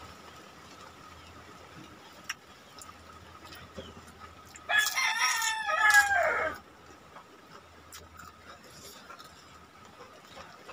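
A rooster crows once, a single call of about two seconds that falls in pitch at the end, about five seconds in.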